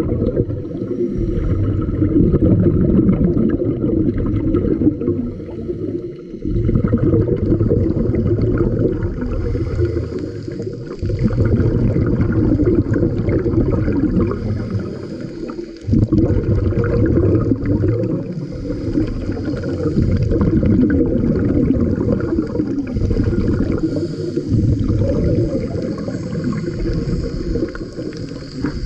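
Scuba diver breathing through a regulator underwater: a loud, low rumble of exhaled bubbles, broken by brief lulls a few times.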